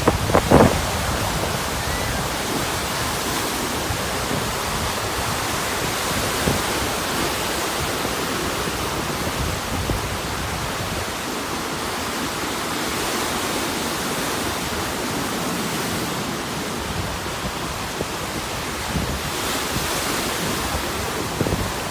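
Strong wind buffeting the microphone over the steady rush of lake waves breaking on the shore, with a loud thump about half a second in.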